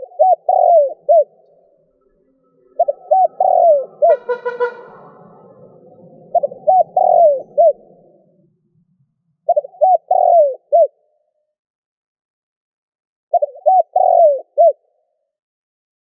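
Spotted dove cooing: five phrases, each a quick run of several hoarse coos, three to four seconds apart. A brief buzzy call overlaps the second phrase about four seconds in.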